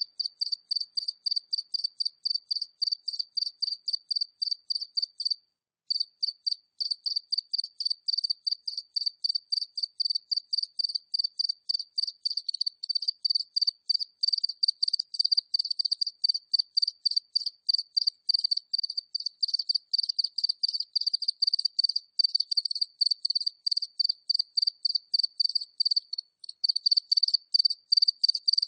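A single cricket chirping at medium distance: short, high chirps repeated steadily about three times a second, with a brief pause about five and a half seconds in and a shorter one near the end.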